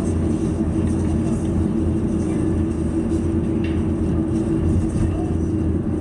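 Steady road noise heard from inside a car's cabin while driving at town speed: the engine and tyres make a low, even drone.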